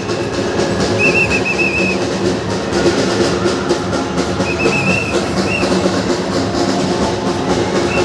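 Loud music over a steady rumble, with clusters of short, high whistle-like chirps repeating a few times.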